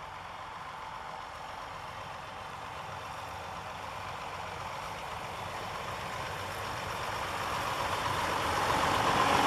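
Tractor with a front-mounted snow plow approaching, its engine and the blade pushing snow growing steadily louder as it comes close.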